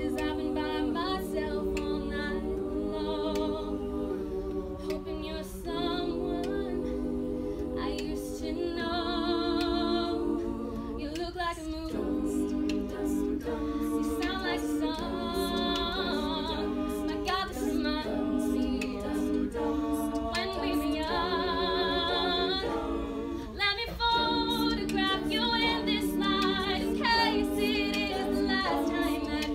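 Women's a cappella group singing unaccompanied: a lead voice with vibrato over held backing harmonies.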